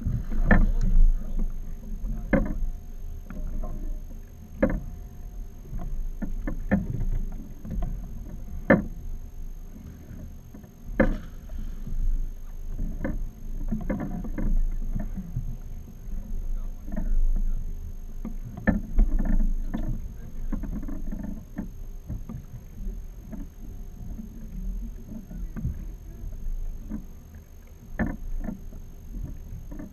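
Small fiberglass fishing boat at sea: water slaps the hull, with irregular sharp knocks and thumps on the boat and a steady low rumble underneath.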